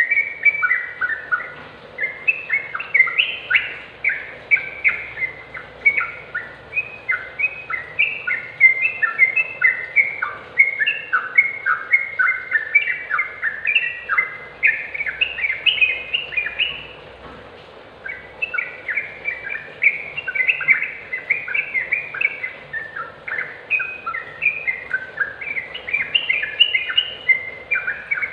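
Yellow-vented bulbul in full song: a rapid, jumbled run of short chattering, bubbling notes that goes on almost without a break, stopping briefly a little past halfway before starting again.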